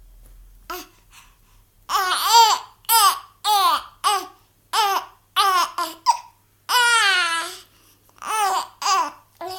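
Baby babbling through hiccups: a run of short, high-pitched, laugh-like vocal bursts, roughly two a second, with one longer drawn-out sound in the middle.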